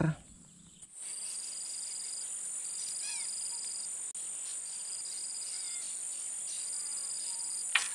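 Insects calling: a steady high-pitched buzz comes in about a second in, joined by a lower pulsing trill in four bursts of about a second each. A faint short bird chirp comes about three seconds in.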